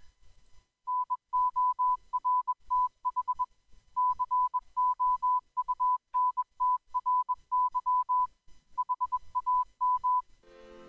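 Morse code sent as a single steady tone of about 1 kHz, keyed in short and long elements for about nine seconds. Music starts near the end.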